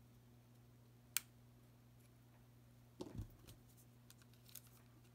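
Flush-cut pliers snipping a pin of a single-inline socket strip, one sharp click about a second in. About two seconds later comes a short cluster of soft knocks and ticks as the parts are handled, over a faint steady low hum.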